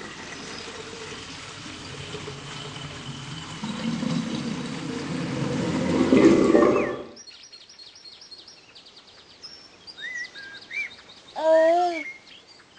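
A dense rushing noise builds up and cuts off abruptly about seven seconds in. Birdsong follows: rapid high chirps, then short whistles, and a brief pitched call that bends up and down about a second before the end.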